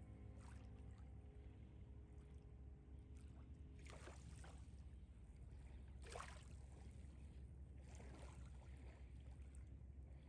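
Near silence between background music tracks: a faint low hum with a few soft swishes, the clearest about four and six seconds in.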